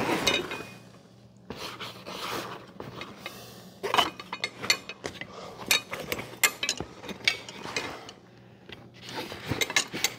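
Stainless steel garden hand tools clinking and knocking against one another as they are slid into a fabric tool bag, with fabric rustling, in irregular short clicks.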